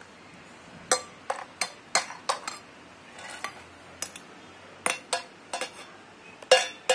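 Steel spoon clinking and scraping against a stainless steel bowl: a string of short, sharp clinks at uneven intervals.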